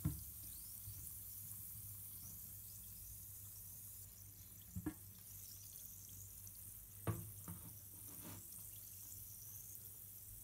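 Effervescent surprise egg fizzing as it dissolves in a bowl of water, much like a bath bomb: a faint, steady crackling hiss. A few soft knocks about halfway through and again a couple of seconds later.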